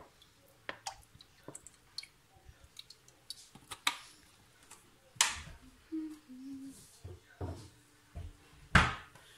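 Kitchen clatter: scattered sharp clicks and knocks of cookware being handled beside a pot of heating oil, with two louder thumps about five and nine seconds in.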